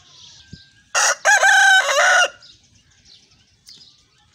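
White Aseel rooster crowing once: a brief opening note, then a longer held call that drops in pitch at its close, about a second and a half in all. Faint chirping of small birds goes on behind it.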